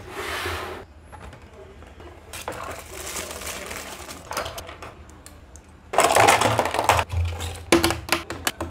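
Paper and packaging rustling in bursts as the set is unwrapped, loudest about two-thirds of the way through. Near the end, hard plastic Beyblade stadium parts clicking and clattering as they are handled.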